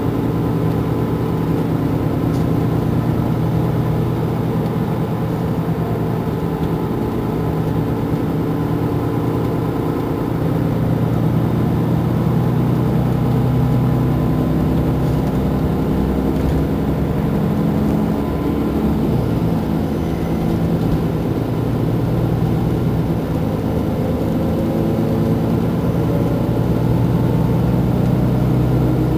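Mercedes-Benz Intouro bus's diesel engine idling steadily while the bus stands still.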